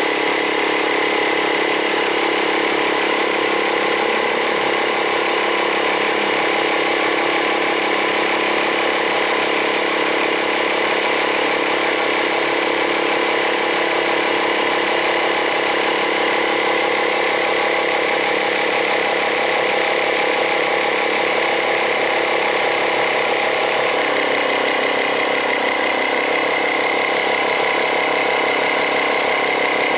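Small 12-volt electric air compressor from a tyre puncture repair kit running steadily as it pumps up a tyre, with a slight change in its tone about 24 seconds in.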